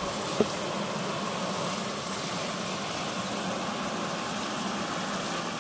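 Water spraying steadily from a garden hose, with one short knock about half a second in.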